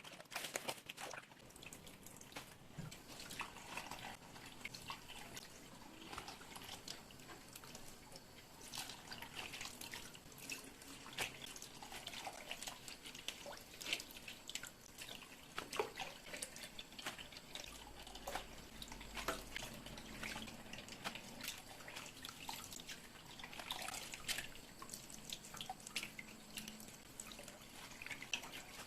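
Water dripping and trickling, faintly, with many small clicks and knocks of things being handled throughout.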